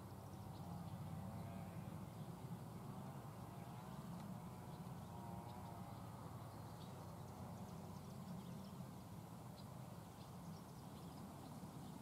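Faint field ambience: a steady low hum with scattered faint bird calls and chirps.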